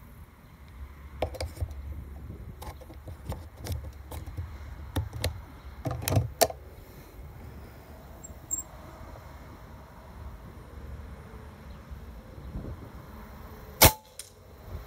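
Shot from a Reximex Throne .25 PCP air rifle: one sharp crack near the end, followed shortly by a faint tick. Before it comes a run of clicks and knocks over the first six or so seconds, over a low wind rumble.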